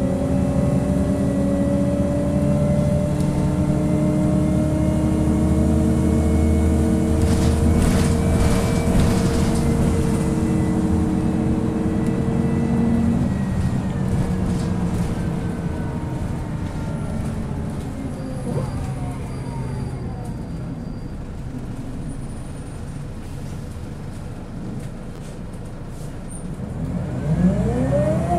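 Scania L94UB bus heard from inside the saloon: the diesel engine pulls steadily under load with a thin high whine from its ZF Ecomat four-speed automatic gearbox, then eases off about halfway through and runs more quietly as the whine falls in pitch. Near the end the engine revs up sharply again. There is a short rattle about eight seconds in.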